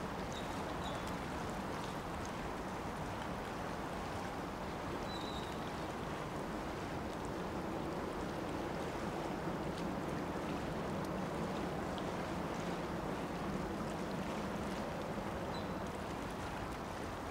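Steady harbourside ambience: a constant wash of water and light wind, with a low rumble that swells a little in the middle and a few faint high chirps.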